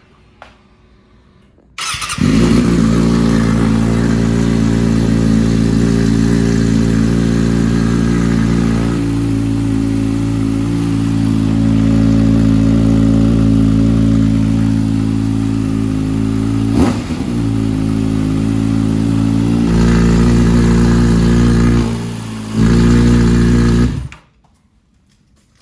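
Kawasaki ZX-6R inline-four motorcycle engine running at a steady idle. It comes in suddenly about two seconds in, steps in level a few times, and stops abruptly near the end.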